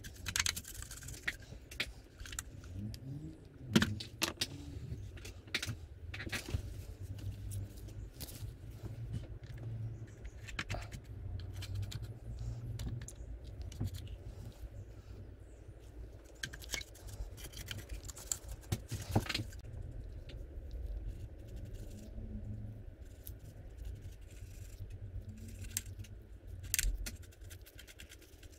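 A brush dabbing and scrubbing weathering powder onto a plastic model tank: a stream of small irregular clicks and taps, with a few sharper knocks. A low steady hum runs underneath.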